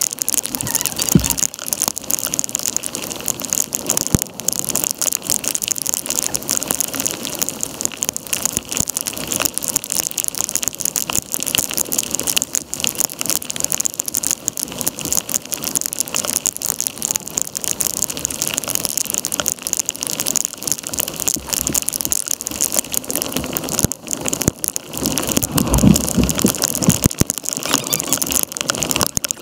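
Torrential thunderstorm rain pelting the river surface and the kayak, a dense steady hiss packed with sharp drop hits. A louder low rumble comes about three-quarters of the way through.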